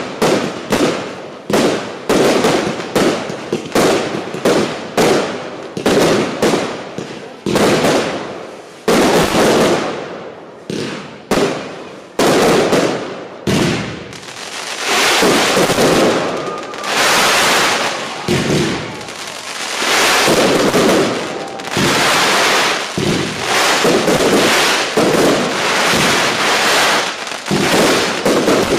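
Fireworks display of F2-class fireworks: sharp bangs in quick succession, about two a second, then from about halfway a dense, continuous crackling and banging as many effects fire at once.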